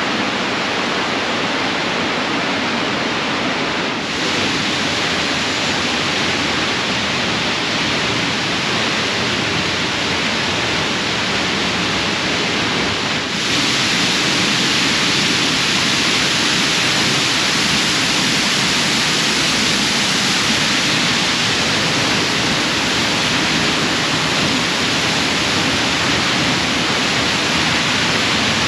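Waterfall rushing close by: a loud, steady rush of falling water that steps up louder and brighter about 4 seconds in and again about 13 seconds in.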